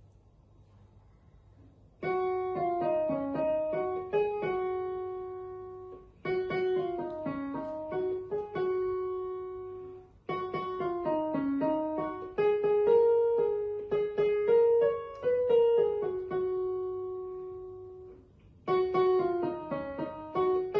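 Yamaha PSR-I455 portable keyboard played with a piano sound: a simple melody in short phrases, each note ringing and fading. It starts about two seconds in, with brief pauses between phrases and a longer one near the end.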